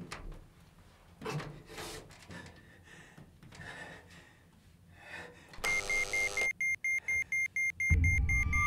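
Faint knocks and rattles at a door, then, about five and a half seconds in, a loud electronic buzz from a bomb's timer, followed by rapid electronic beeping, several beeps a second. Near the end a low rumbling music bed rises under the beeping.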